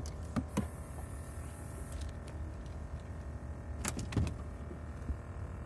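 Steady low hum of a boat engine running, with a few sharp clicks and knocks about half a second in and again about four seconds in.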